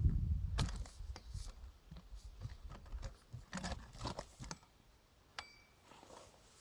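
Irregular light knocks and clicks, some about half a second apart, after a low rumble that dies away in the first second.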